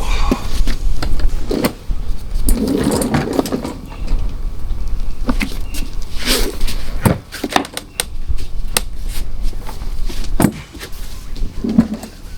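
Metal tools clinking and knocking irregularly, with short stretches of scraping and rustling, while work goes on at the fuel tank bolts under a car.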